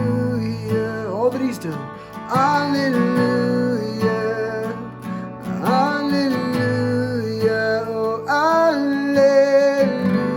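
Slow music led by acoustic guitar, with sustained melody notes over a held bass.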